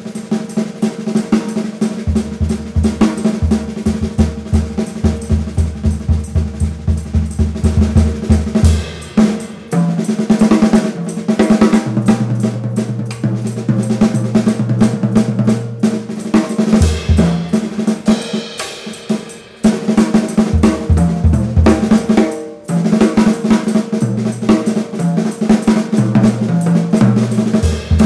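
Acoustic drum kit played busily in a jazz piano trio: rapid snare strokes and rolls, tom and bass drum hits and cymbals, over sustained low pitched tones. The playing thins out briefly a few times before picking up again.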